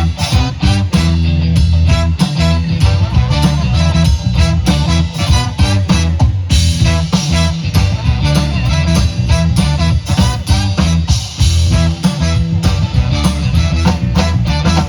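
Live band playing an instrumental passage loudly, with a heavy bass line, guitar and busy drums.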